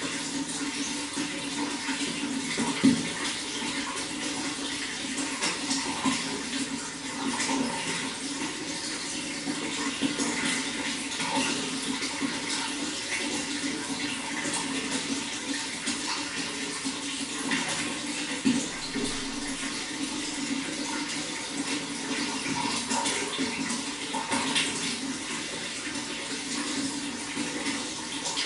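Water running steadily, with a couple of brief louder splashes.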